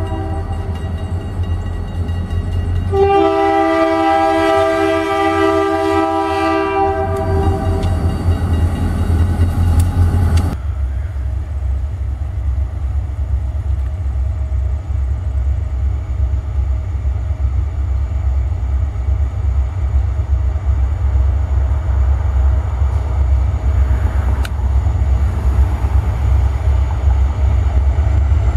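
A diesel locomotive's air horn sounds a loud chord for about five seconds near the start, then cuts to the steady low rumble of the lead locomotive's diesel engine as the freight train approaches.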